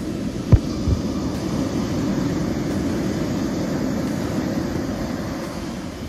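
Steady low rushing of breaking surf and wind, with two short thumps about half a second and a second in.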